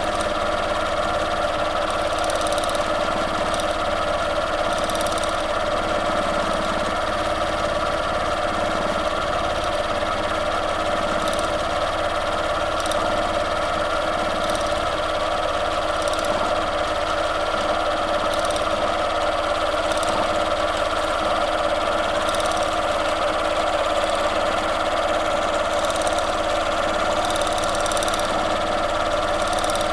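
Domestic sewing machine running steadily at an even speed, free-motion quilting through a quilt sandwich.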